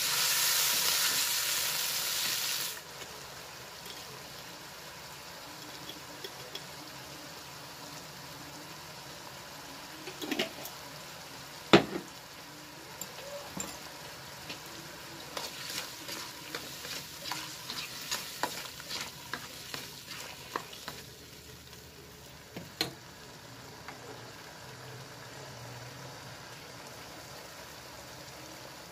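Vegetables sizzling in hot oil in a wok as they are stirred, the sizzle dropping off sharply about three seconds in to a quiet steady hiss. Later come scattered light clicks and knocks in the pan, the loudest a single sharp knock about twelve seconds in.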